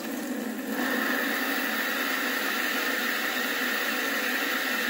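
Brondell bidet seat's wash nozzle spraying a steady jet of water into a plastic tub, growing stronger about a second in as the second wash setting is tried.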